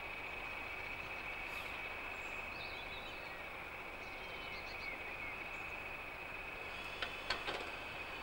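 Pair of English Electric Class 20 diesel locomotives running slowly: a steady high-pitched whistle over an even noise. There are a few faint bird chirps, and several sharp clicks near the end.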